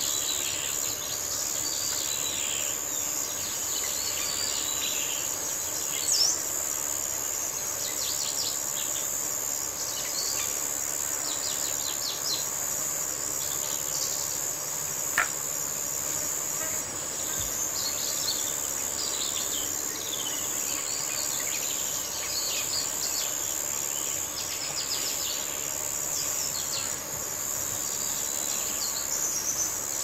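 Countryside ambience: a steady high-pitched insect drone, cricket-like, under frequent chirps and short calls of several songbirds. A single sharp click sounds about halfway through.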